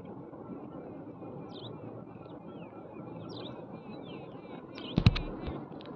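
Small birds chirping in quick, short, falling notes over a steady low background rumble. A single sharp knock about five seconds in is the loudest sound.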